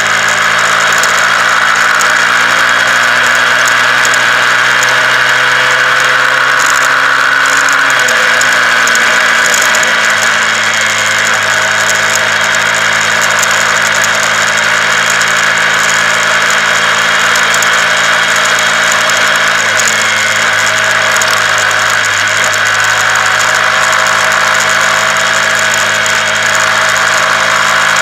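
Honda CBR125R's single-cylinder four-stroke engine running under way. Its pitch rises slowly for about eight seconds, then drops suddenly and holds steady. A constant rush of wind and road noise runs with it.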